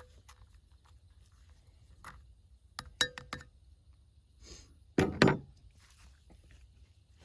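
Camp coffee-making gear handled: a quick run of light metal or glass clinks about three seconds in, then a louder clunk about five seconds in.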